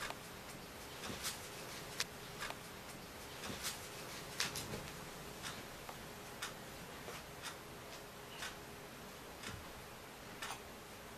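Faint clock ticking, about one tick a second, with a few extra soft clicks in between and a low steady hum underneath.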